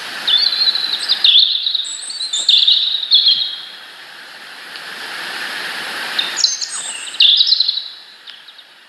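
Small birds chirping in quick clusters of high notes, in two bouts a few seconds apart, over a background hiss that swells and fades.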